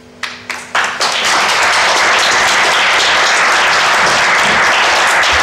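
Audience applauding: a few single claps in the first second, then full, steady applause.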